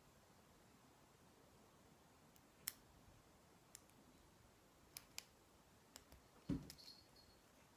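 Faint, scattered clicks of a lock pick and tension tool working the pins of a Lockwood five-pin oval cylinder during single-pin picking. A soft knock comes near the end.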